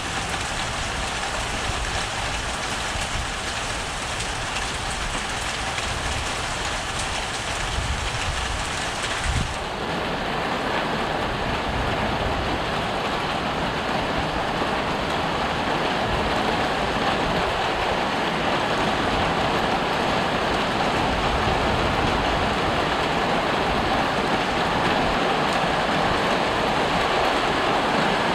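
Heavy rain pouring down in a steady hiss during a thunderstorm. About nine seconds in the sound changes abruptly to a duller, fuller wash with less hiss.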